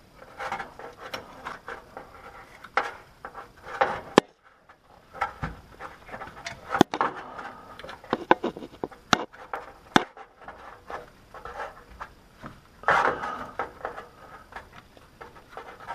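Irregular clicks, taps and scrapes of a plastic shifter-cable locking clip being worked by hand onto the gear-linkage cable end at the gearbox.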